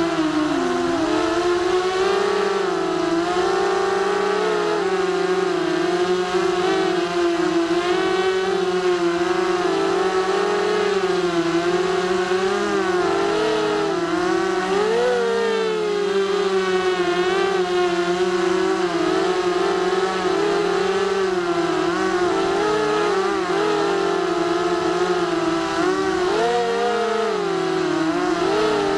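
Emax Nighthawk 280 Pro quadcopter's brushless motors and propellers whining steadily, the pitch rising and falling constantly with throttle changes.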